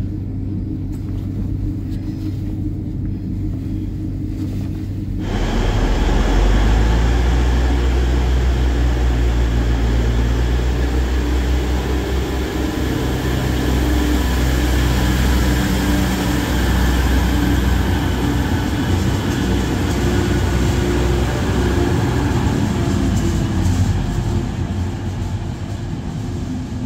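DB class 612 tilting diesel multiple unit running: a steady low engine drone that turns abruptly louder and fuller about five seconds in, with a wide rushing noise, and holds there.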